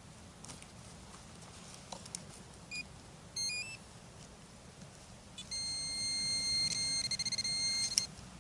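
Garrett Apex metal detector signalling a target: a few short beeps stepping in pitch about three seconds in, then a steady high tone held for about two and a half seconds from five and a half seconds in, warbling near the end and stopping with a click.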